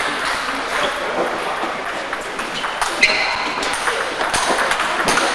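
Table tennis rally practice: a steady stream of sharp clicks of celluloid balls striking paddles and tables, irregular and overlapping as several tables play at once, with faint voices behind.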